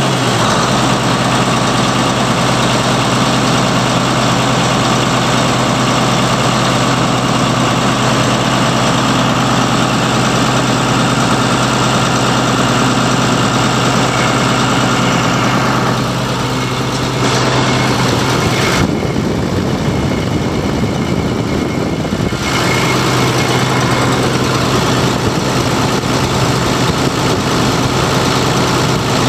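John Deere 8640's six-cylinder turbocharged diesel engine (the 6619) idling steadily.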